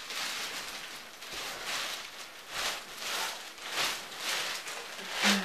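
Rustling of clothes and bedding with footsteps in a small room: a run of soft swishes, one every half second to a second. Right at the end comes a short louder sound with a brief falling low tone.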